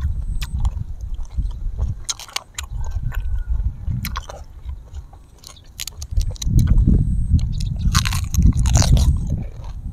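Close-miked chewing and biting: wet mouth clicks and smacks, louder near the end as a piece of raw cabbage leaf goes in and is chewed.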